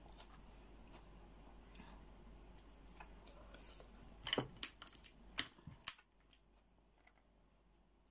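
Fingers picking at a cooked brown crab's shell: faint crackling, then a handful of sharp shell clicks and snaps between about four and six seconds in.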